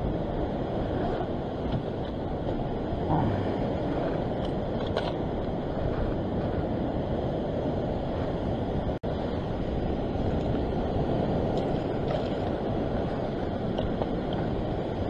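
Steady wind rushing on the microphone over the wash of surf breaking on a rock shelf, with the sound cutting out for an instant about nine seconds in.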